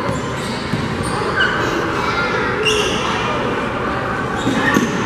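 Girls' basketball play on a hardwood gym floor: the ball being dribbled and sneakers squeaking in short high chirps, with scattered voices from players and spectators in the large hall.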